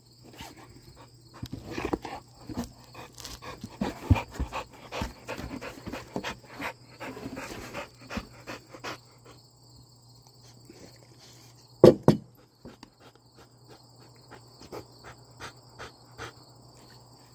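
Dog panting with its mouth open while porcupine quills are pulled from its muzzle, over steady insect chirring. About two-thirds of the way through there is one sudden loud double sound.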